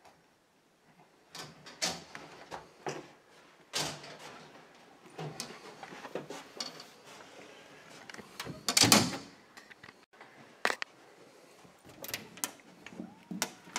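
Interior doors being handled as they are pushed open and closed: a series of knocks and latch clicks, with a louder, longer noise about nine seconds in.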